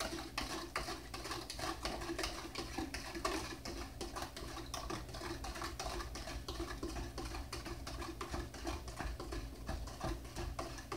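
A spoon stirring lemonade in a pitcher, a rapid, steady run of small ticks and scrapes against the bottom: sugar not yet dissolved is still being stirred in until it can no longer be heard.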